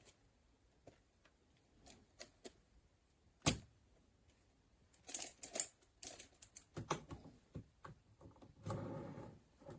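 Handling noises in a small room: scattered sharp clicks and knocks, a loud click about three and a half seconds in, a quick flurry of crisp clicks in the middle, and a short rustle near the end.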